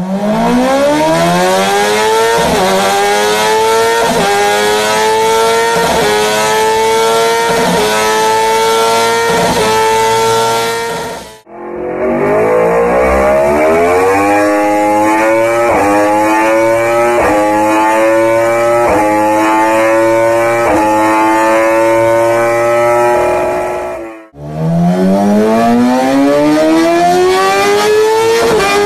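Superbike engines at full-throttle acceleration through the gears, three runs joined one after another with a brief silence between them. Each engine note climbs steeply, drops a little at each quick upshift about every one and a half to two seconds, and climbs again. The second run is a Yamaha YZF-R1 and the last, starting near the end, a Kawasaki ZX-10R, both inline-four engines.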